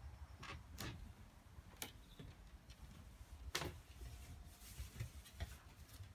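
A handful of faint, irregularly spaced clicks and taps.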